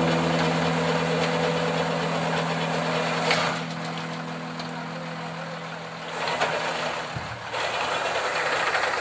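Heavy recovery truck's engine running steadily, under sustained background music chords that fade out about seven seconds in.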